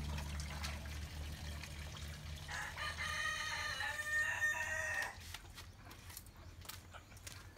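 A rooster crows once, one long call of about two and a half seconds starting a little after two seconds in. Faint background music fades out at the start.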